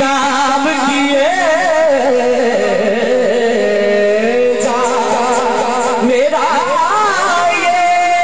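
A man's voice singing a naat in long held notes, the pitch wavering in ornaments and sliding between notes.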